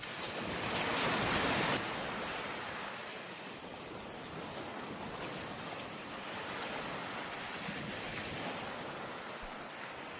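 Wind rushing over a phone's microphone on a moving bicycle: a steady hiss, loudest for about the first two seconds.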